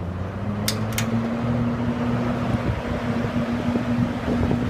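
Two late-1960s Hunter-made box fans running up to high speed, with a rush of air. Their motor hum rises in pitch over the first second or so, then holds steady. Two sharp clicks come about a second in.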